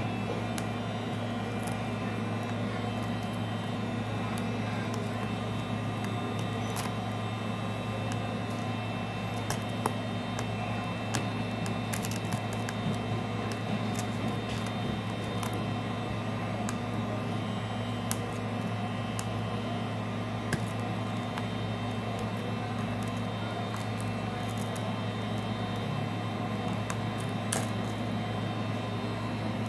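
Heat gun running steadily, its fan motor blowing hot air to soften the adhesive under the glass. A few small clicks are scattered through it.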